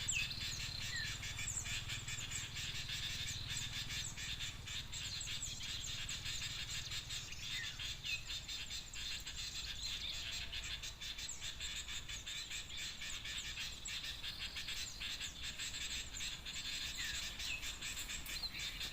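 Dense, steady twittering of many small birds, with short high chirps falling in pitch scattered throughout. This is a bird-lure recording of noisy small birds mixed with bulbul calls, played to draw common ioras in to a birdlime trap.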